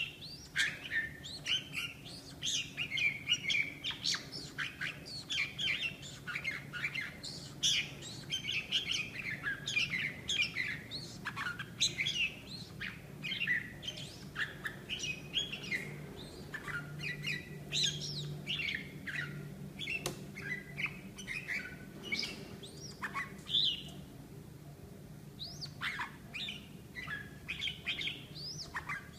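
Male red-whiskered bulbul chattering during its courtship wing display: a fast, continuous run of short chirps and whistled notes, thinning out briefly about three-quarters of the way through.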